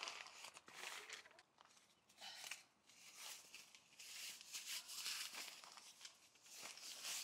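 Rustling and crinkling of fabric and gear bags being handled and folded, in irregular bursts with short quieter gaps between.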